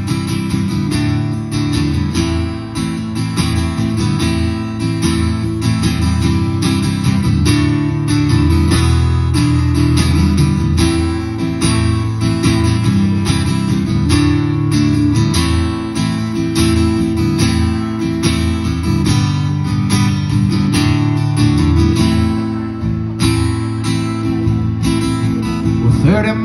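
Acoustic guitar strummed in a steady rhythm, an instrumental break between sung verses of a live song.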